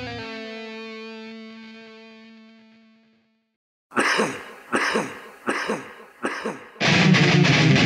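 A ringing electric guitar chord dies away over about three seconds, closing a thrash metal song. After a second of silence, four sharp, evenly spaced hits count in the next song, and the full thrash metal band (distorted guitars, bass and drums) comes in loud near the end.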